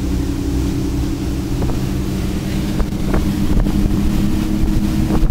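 The engines of an Ocean Yachts 48 running steadily with the boat underway: a continuous low hum with wind buffeting the microphone. A few short clicks sound over it.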